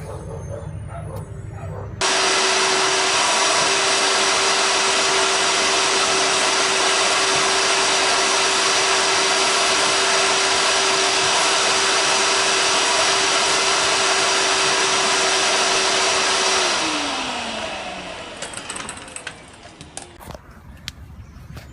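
Vacuum cleaner motor switched on abruptly, running with an even rushing noise and a steady hum for about 14 seconds while it sucks rubber grinding dust out of the tire, then switched off and winding down with a falling hum. A few light clicks of handling follow near the end.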